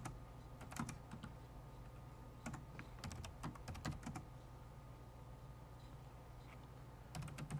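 Computer keyboard keys being typed in short scattered runs of clicks, with a few seconds' pause in the middle, over a low steady hum.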